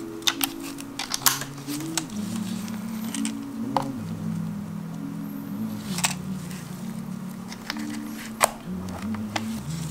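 Slow background music with sustained low notes, over a scatter of sharp plastic-and-metal clicks as parts are fitted onto a Seagull DF-300X film SLR body. The loudest clicks come about a second in and again near the end.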